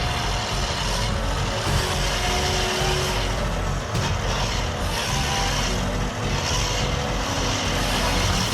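A heavy machine's engine running steadily under load, a dense, continuous mechanical noise.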